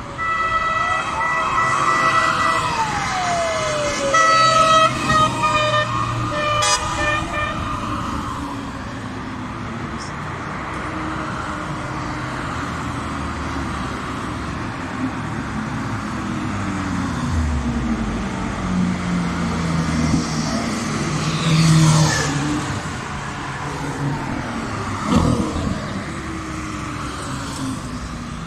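Cars driving past on a race circuit, their engines revving and accelerating. A horn sounds in steady, stop-start tones through the first several seconds.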